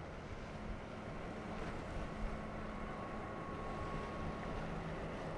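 Motorboat running at speed through choppy water: a steady outboard engine drone mixed with the rush of water and spray along the hull.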